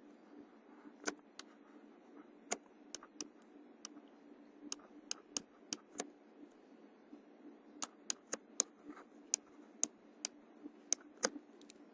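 Light, irregular clicks and taps of a stylus on a drawing tablet during handwriting, about two dozen, coming in two clusters, over a faint steady hum.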